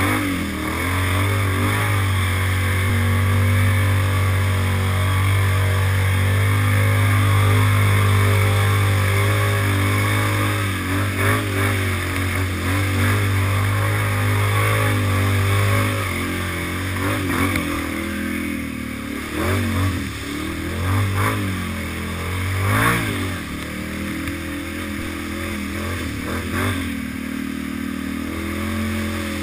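Can-Am Renegade 800R ATV's V-twin engine running hard and steady as it ploughs through deep mud and water, with splashing spray. In the second half the throttle surges and drops several times, the sharpest blip near the end of that stretch, then it settles back to a steadier, slightly lower drone.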